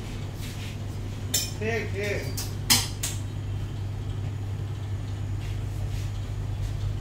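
A few sharp clinks and clatter, the loudest about two and a half seconds in, with a brief voice in the background, over a steady low hum.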